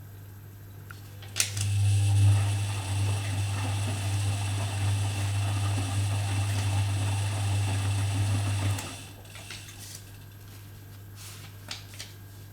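Privileg Dynamic 4612 washing machine running: a click, then a motor hum with whirring over it for about seven seconds, stopping abruptly and leaving a faint hum.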